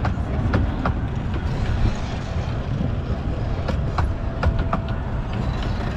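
A vehicle running, a heavy low rumble with irregular sharp clicks and rattles through it.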